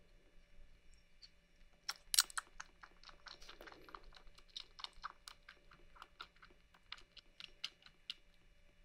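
Young kitten suckling milk from a feeding bottle's rubber teat: a quick run of wet clicks and smacks of its mouth on the nipple, about five a second, starting about two seconds in.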